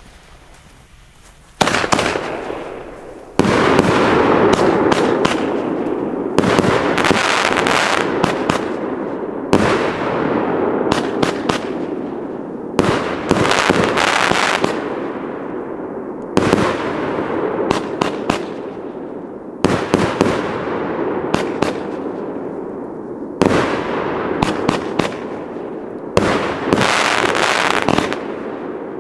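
Firework battery (cake) firing its shots one after another: a loud burst about every three seconds, each followed by a long fading crackle and hiss as the stars fall.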